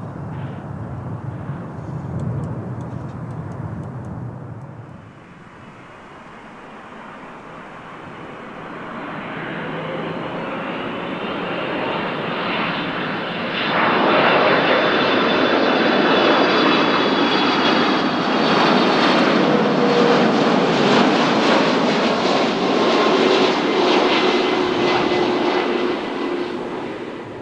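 Large aircraft's engines growing louder as it approaches, then passing close by and loud from about halfway through, with whining tones that slowly drop in pitch.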